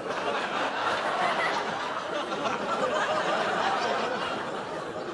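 Studio audience laughing, many people chuckling at once, the laughter holding steady.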